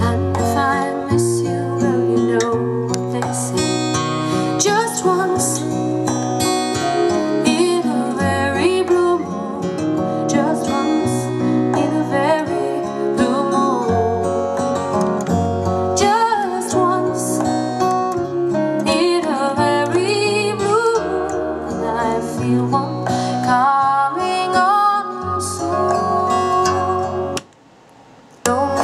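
A song with acoustic guitar playing. The sound drops out briefly about a second before the end.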